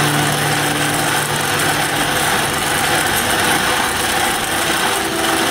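Motor-driven grain mill grinding rye into flour, a steady, even grinding noise.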